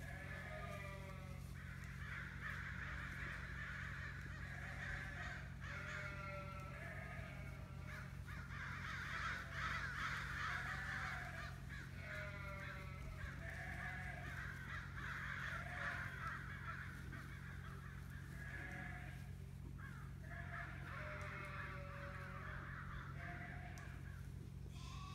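Sheep and lambs bleating over and over, many calls overlapping, with lower arched baas repeating about once a second, all over a steady low hum.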